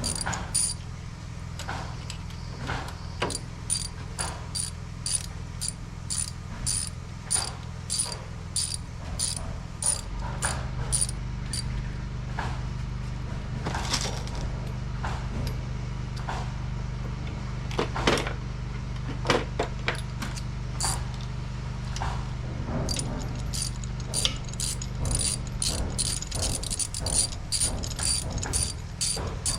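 Ratchet wrench clicking in runs of quick, regular clicks as the pulley bolts are tightened, with a steady low hum underneath.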